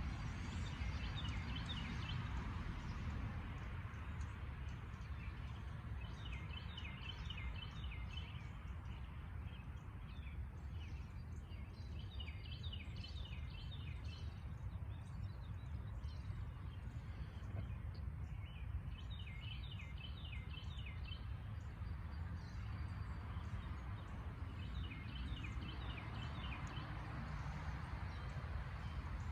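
A songbird singing, repeating a short phrase of quick notes roughly every six seconds, over a steady low background rumble.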